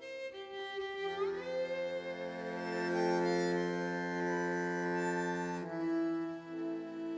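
Tango quartet playing: a violin carries the melody in long held notes, with a rising slide about a second in, over bandoneon, piano and double bass.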